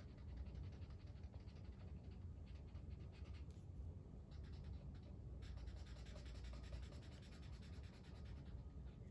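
Felt-tip marker rubbing quickly back and forth on construction paper as a small circle is coloured in, faint and scratchy, with a short lull about five seconds in before the strokes pick up again.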